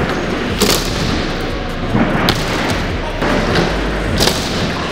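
A dirt scooter rolling over wooden skatepark ramps: a steady, loud rolling rumble with three sharp knocks as the wheels hit the ramps.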